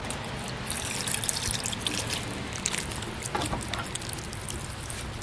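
Water pouring onto plants as they are watered: a steady trickling splatter with many small drips and splashes.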